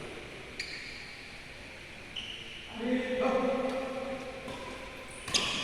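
Badminton play: a sharp racket-on-shuttlecock click about half a second in and another just before the end, with brief high shoe squeaks. In the middle, a person's drawn-out vocal call holds for about a second and a half and is the loudest sound.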